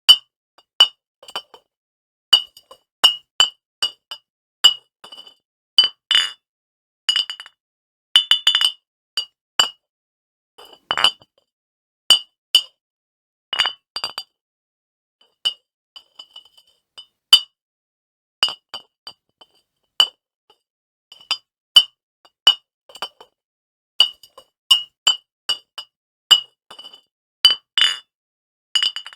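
Glass bottles clinking against each other: many separate sharp strikes at uneven intervals, sometimes in quick clusters, each ringing briefly with a bright glassy tone.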